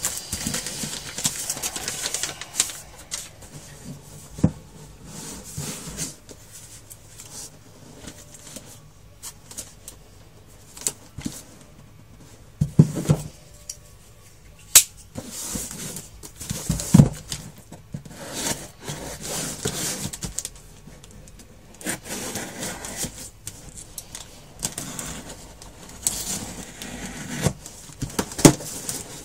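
Cardboard shipping box being handled and turned over, its clear plastic wrap crinkling in repeated rustles, with occasional sharp clicks and a few dull thumps as the box is knocked and set down.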